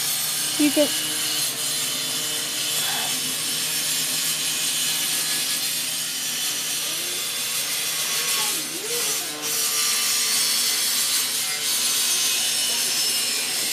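Steady rubbing, scraping noise, with a brief voice-like sound about a second in.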